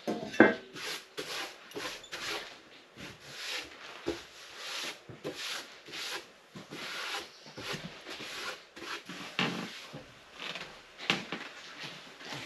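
Back-and-forth rubbing strokes over a wooden benchtop, about two a second, with a single metal clank about half a second in as a long straightedge is set down on the board.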